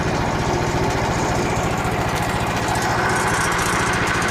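Small gasoline engine of a portable bandsaw mill running steadily at an even speed, with no cut being made.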